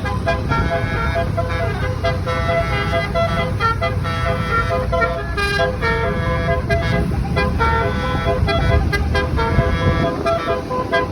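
Bus basuri telolet horn with roof-mounted trumpets playing a melody of short, quickly changing notes, over a steady low engine rumble.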